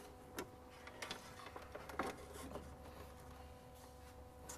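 Faint knocks and bumps of a flat-screen TV being handled and set down on top of a recorder box, over a faint steady hum.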